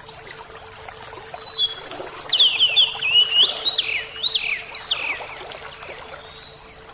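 A bird calling in a quick run of chirps, many sharp falling whistles one after another, for about four seconds starting just over a second in, over the steady rush of flowing water.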